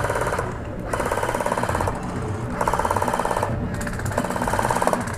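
Airsoft electric rifle firing on full auto in bursts of about a second each, four times, the gearbox rattling out rapid shots.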